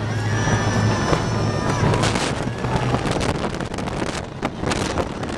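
California Screamin' steel roller coaster train running fast through a drop and turns: wheels rumbling and clattering on the track, wind buffeting the microphone, and riders screaming, with a high steady whine in the first couple of seconds.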